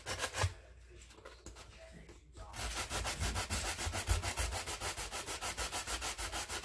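Abrasive sanding sponge scrubbed fast back and forth on a small rusty metal hinge, scraping the rust off. A few strokes at the start, a pause of about two seconds, then steady rapid scrubbing at about five or six strokes a second.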